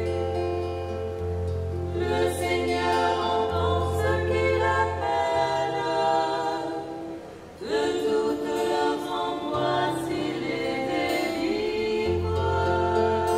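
Church hymn sung by women's voices in harmony, over held low bass notes. The music dips briefly about seven and a half seconds in, then picks up again.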